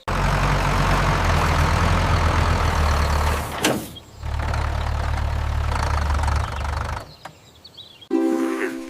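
A vehicle engine running steadily with a low hum. It dips briefly about four seconds in and stops about seven seconds in.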